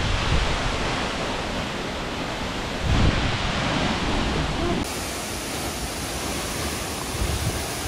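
Tall waterfall pouring into its plunge pool: a steady rush of falling water.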